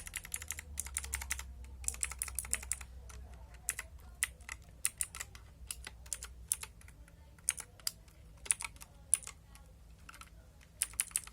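Dareu EK87 mechanical keyboard, lightly modded, being typed on: fast runs of keystrokes at the start and again near the end, with slower separate key presses in between.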